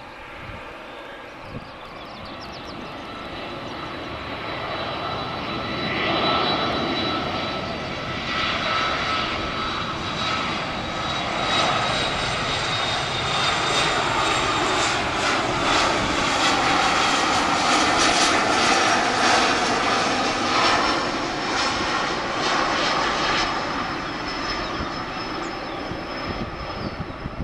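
BAe 146 four-engine jet on final approach, gear down. Steady jet engine noise with a high whine builds over the first several seconds, stays loud as the aircraft flies close past, and eases slightly near the end.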